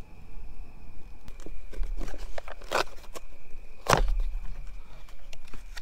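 Light knocks and clicks of objects being handled, with two louder knocks in the middle, over the steady high trill of insects.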